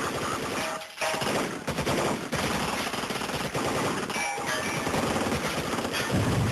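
Sustained automatic gunfire from a film soundtrack: dense, rapid shots that run on with only brief breaks.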